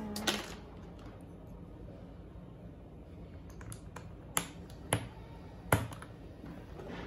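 A handful of separate key presses on a mechanical keyboard fitted with thick PBT double-shot FSA-profile keycaps, single clicks a second or so apart, the loudest a little before the end. A music track cuts off right at the start.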